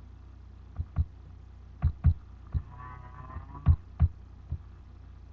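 A person snoring heavily into a microphone, snoring that sounds like a cow: irregular thuds of breath hitting the mic, and a wavering pitched snore lasting over half a second about three seconds in, over a steady low hum.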